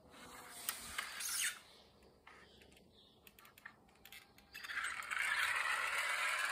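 Die-cast pull-back toy car: clicks and rattling as it is pressed down and dragged on the floor to wind its spring motor, then a loud whirring hiss from the motor and wheels once it is let go and runs off, about two-thirds of the way in.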